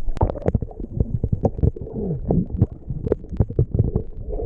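Close, irregular knocking, tapping and low rumbling handling noise, many sharp knocks in quick succession.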